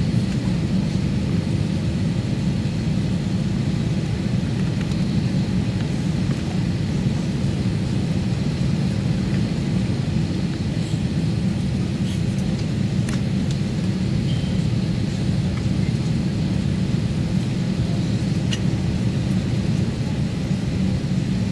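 Cabin noise inside an Airbus A321 taxiing on the ground: a steady low rumble and hum from the engines at taxi power and the cabin air, even in level throughout, with a few faint ticks from the cabin.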